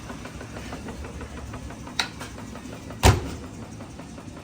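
Maytag Maxima washer running a cycle with a steady low hum as its new drain pump pumps the water out. A sharp click comes about two seconds in, and a louder knock about a second later.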